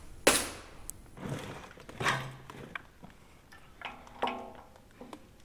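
Scattered metal knocks and clanks as brake shoes and parts are handled on a gearbox's brake assembly. A sharp knock about a quarter second in is the loudest, and a few later clanks ring briefly.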